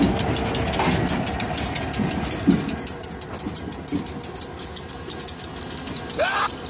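CSX diesel freight locomotive running as the train moves through a grade crossing, with the crossing bell dinging rapidly and evenly over the low engine hum. A single short rising squeal comes near the end.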